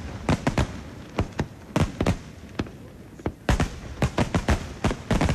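Starmine fireworks barrage: aerial shells bursting in quick succession, sharp bangs coming irregularly at about three a second.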